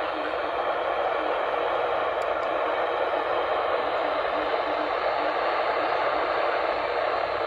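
Steady hiss of static from a weather radio receiver between broadcast messages, thin and band-limited like radio audio.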